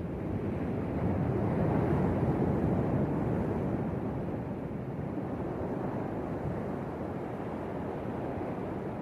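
Sea waves surging: a rush of water that swells about two seconds in and then slowly eases.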